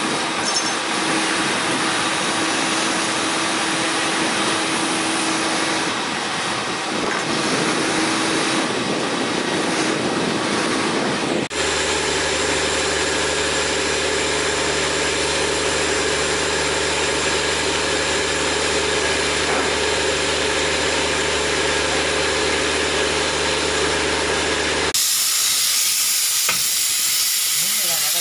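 Steady hiss of cleaning equipment working a hose over a railway coach floor. About a third of the way in it cuts to a steady machine drone with a low hum, and near the end to hissing again as disinfectant is sprayed inside the coach.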